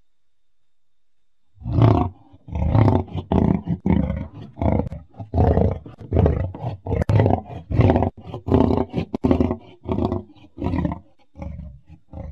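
Lion roaring sound effect, presented as the extinct Mosbach lion. After about a second and a half of silence comes a fast run of short, deep calls, around two or three a second, growing weaker near the end.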